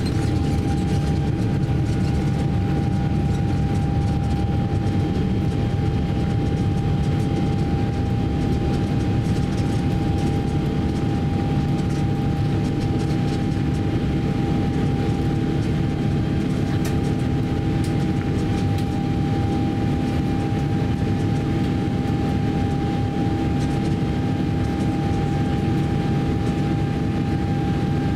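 Cabin noise inside a Boeing 777-300ER during takeoff and initial climb: the GE90 engines run at high thrust as a steady, even drone with a steady high whine over it.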